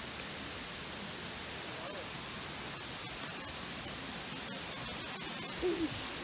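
Steady rushing of flowing water, with a short sound rising and falling in pitch near the end.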